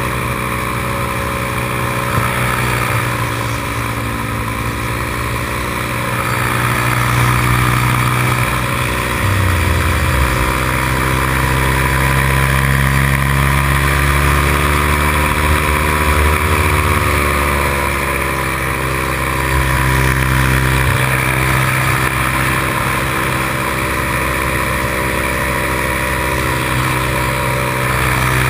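Paramotor engine and propeller running steadily in flight, heard from the pilot's seat, its pitch wavering slightly now and then and the sound growing a little louder about a quarter of the way in.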